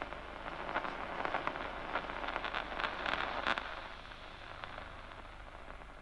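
Locust's DCMD nerve impulses played through a loudspeaker: a crackle of sharp clicks over a steady hiss. The clicks thicken into a dense burst about two to three and a half seconds in, the neuron firing a volley of action potentials, then thin out.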